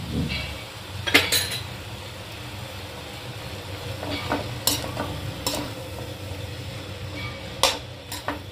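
Slotted steel spatula stirring peas, mashed potato and chopped vegetables in a metal pan: scraping, with a dull knock at the start and sharp clinks against the pan about a second in, near the middle and near the end, over a steady frying sizzle.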